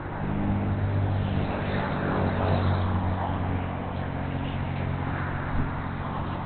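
Steady low mechanical rumble with a hum of several low tones, getting a little louder about half a second in.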